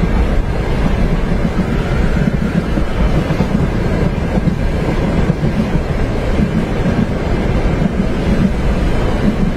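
Steady low rumble of a train running along its tracks, heard from inside a passenger compartment, with wind noise mixed in.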